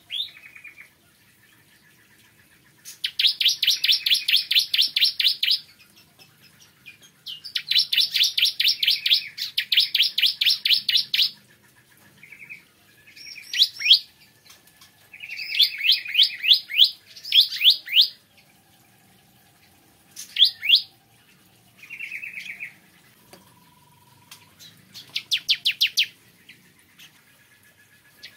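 Bar-winged prinia (ciblek kristal) singing: bursts of rapid, evenly repeated high notes, each lasting two to three seconds, separated by short pauses, with some quick rising notes between the bursts.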